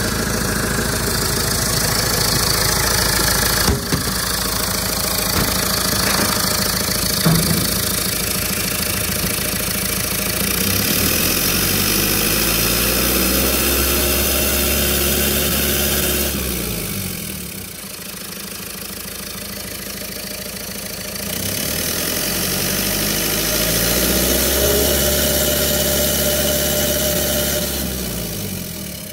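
Mercedes OM904LA four-cylinder turbodiesel engine running, blipped up twice to higher revs, each time held for several seconds and then allowed to settle back toward idle. Two sharp knocks are heard a few seconds apart during the steady running before the first rev.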